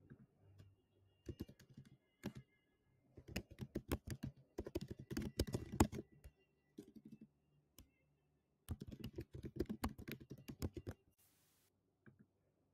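Typing on a computer keyboard: quick runs of key clicks in two main bursts, with a pause of over a second between them.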